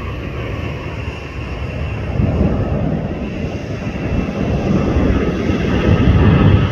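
Boeing 737 jet airliner's engines at takeoff thrust during the takeoff roll: a deep rumble that grows louder from about two seconds in and is loudest near the end as the jet rotates.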